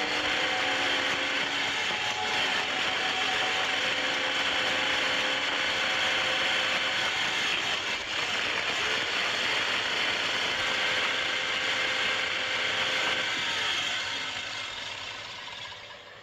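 Sound effect of a laboratory machine for turning a man into a zombie, running: a loud, dense, steady mechanical noise with a faint held whine under it, fading out over the last two seconds.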